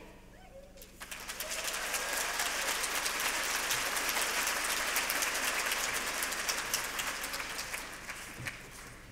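Audience applauding, starting about a second in, holding steady, then fading away near the end.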